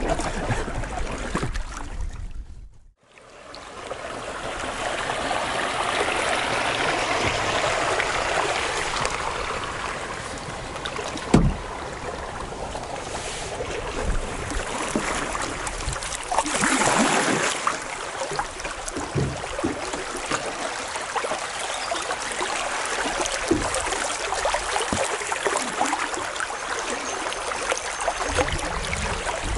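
Flowing river water around a canoe under way, a steady rushing hiss with a few dull knocks, the sharpest about eleven seconds in. The sound drops briefly to near silence about three seconds in, then swells back up.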